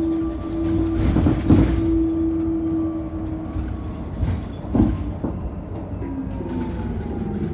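Cabin sound of a BYD K9RA battery-electric bus on the move: road and tyre rumble under the steady whine of its electric traction motors, which fades after a few seconds. Near the end the motor whine returns and falls in pitch as the bus slows. A few short rattling knocks come from the bus body.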